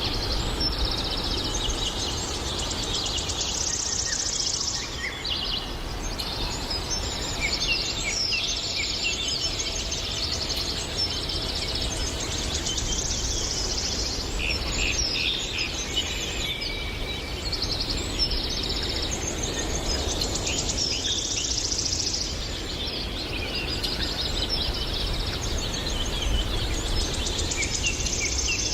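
Several birds singing and calling at once, a dense run of overlapping chirps, trills and quick whistles, over a steady low background rumble.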